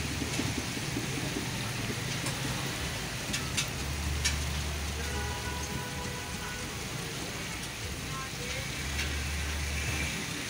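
Hot oil sizzling and bubbling steadily in a deep fryer as breaded chicken fries, with a few light clicks.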